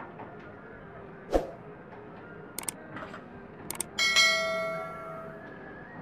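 Subscribe-button animation sound effect: a thump, two pairs of mouse clicks, then a bell ding that rings out and fades over about a second and a half.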